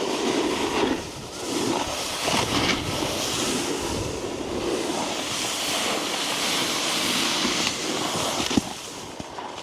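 Snowboard sliding and carving over snow, the board scraping in uneven surges with wind on the microphone; a sharp knock near the end, after which it quietens.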